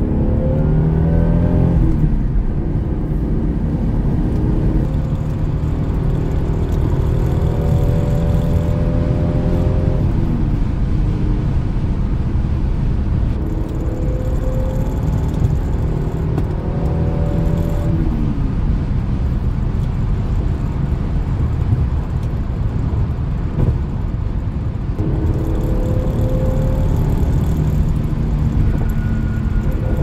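Lexus SC300's 2JZ inline-six engine heard from inside the cabin, pulling hard under a heavy road rumble. The engine note climbs in pitch and drops back at each upshift through the manual gearbox, three times, then climbs again near the end.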